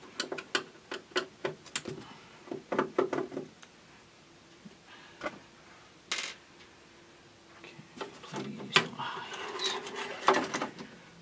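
Small metal tools and board hardware clicking and clinking in short bursts, with a quiet stretch in the middle and one louder knock about six seconds in, as the CRT video driver board is worked loose from the TRS-80 Model III chassis.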